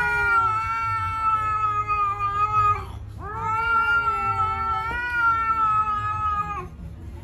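A cat yowling at another cat face to face: two long, drawn-out yowls, each held at a steady pitch, the second starting about three seconds in.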